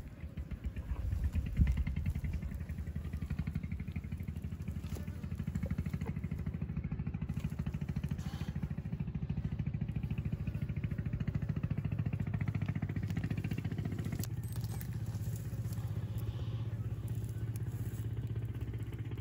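A small engine idling with a steady low rhythmic hum; its tone shifts slightly about fourteen seconds in. A couple of louder low thumps come about a second or two in.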